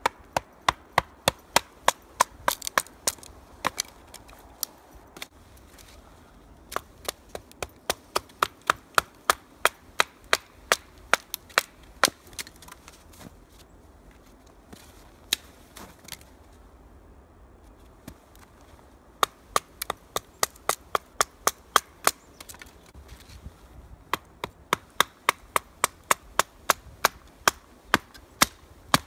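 A wooden baton striking the spine of a fixed-blade knife (JaktKit KNV2) driven into wood to split it: quick runs of sharp knocks, about three a second. There is a pause of several seconds near the middle, with only a few stray knocks.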